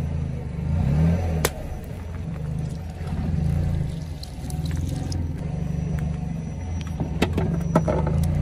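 Car engine running slowly with a steady low hum as a tyre rolls over a water balloon filled with water beads. A sharp pop comes about a second and a half in as the balloon bursts, and a few sharp clicks follow near the end.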